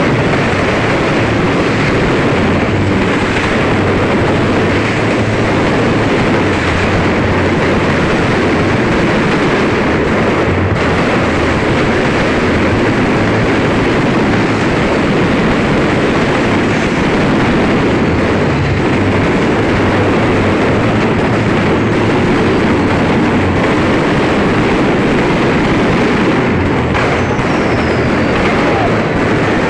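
Fireworks display going off without a break: a loud, dense, steady roar of bangs and crackle with no gaps between bursts.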